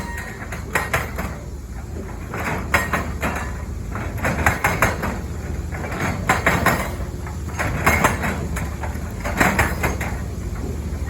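Hydraulic breaker on a Caterpillar 320 excavator hammering in short bursts of rapid blows, about every one and a half to two seconds, over the steady running of the excavator's diesel engine.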